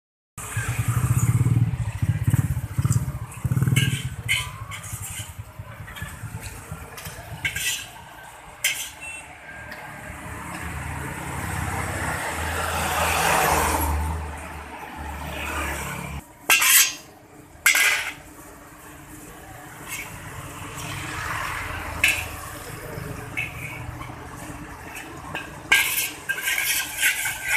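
Road traffic: motorcycles running past, then a large truck going by with a rising and falling rush about halfway. Near the end a metal spatula scrapes and clinks against an oiled iron wok.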